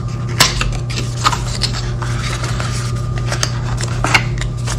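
Cardboard packaging being handled: a small paperboard accessory box is lifted and opened, giving light rubbing scrapes and a few soft knocks at irregular moments. A steady low hum runs underneath.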